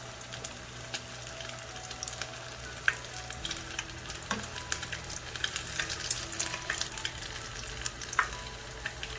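Breaded corn dogs deep-frying in hot canola oil: a steady sizzle thick with fine crackling pops, with a few sharper clicks standing out.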